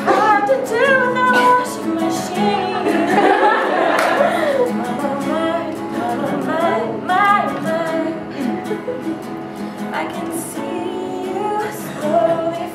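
A woman singing a song while accompanying herself on acoustic guitar.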